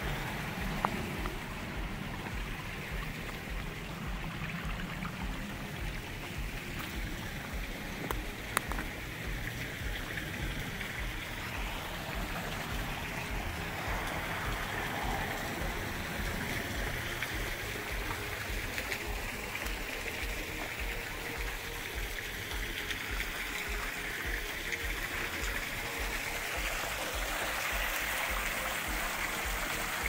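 Small waterfall trickling and splashing down a rock face: a steady rush of falling water that grows slightly louder near the end. Two brief sharp clicks stand out, one about a second in and one near 8 seconds.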